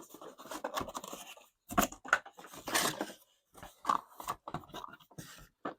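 Hard plastic vacuum parts and packaging being handled: a run of irregular clicks and knocks, with a longer rustle about three seconds in.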